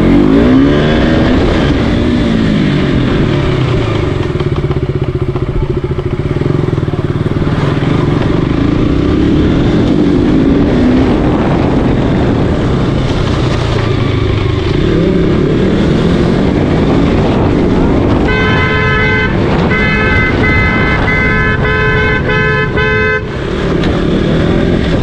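Sport motorcycle's engine running at low speed, the revs rising and falling in the first few seconds, then holding fairly steady. About eighteen seconds in, a horn sounds in four short blasts over about five seconds.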